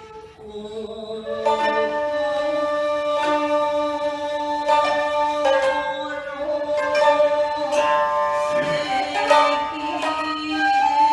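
Japanese jiuta chamber music: sangen (shamisen) and koto plucking notes while a shakuhachi bamboo flute holds long notes over them. The ensemble is briefly quieter at the very start, then plays on steadily.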